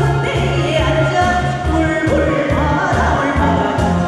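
A man and a woman singing a trot song as a duet into microphones, over backing music with a steady, pulsing beat.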